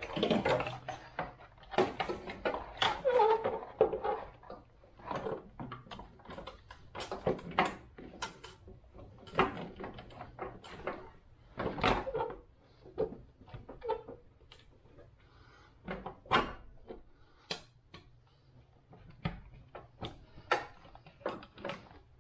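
A valve cover on a Toyota 2ZZ engine being worked back onto the cylinder head over a new gasket. It scrapes and rubs for the first few seconds as it is slid under into place, then there are scattered knocks and clicks as it is seated and handled.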